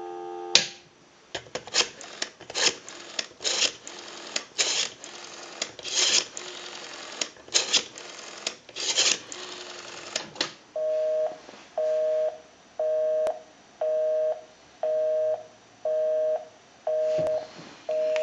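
Telephone line heard through an amplifier: the dial tone cuts off, a rotary dial clicks out a number for about ten seconds, then a busy signal beeps on and off about once a second.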